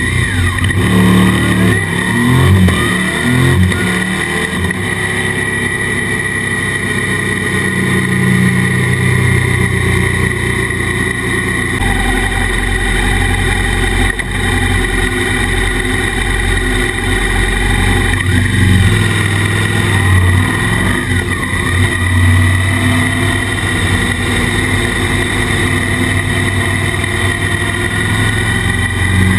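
Suzuki DL650 V-Strom's 645 cc V-twin with an Akrapovic exhaust, pulling away and accelerating through the gears in rising steps near the start, then running at steadier town speed with another short climb in revs later. Heard muffled through a waterproof camera housing on the crash bar.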